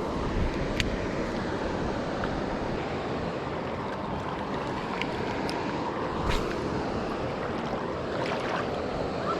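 Steady rushing of flowing river water, with some wind on the microphone and a few faint clicks.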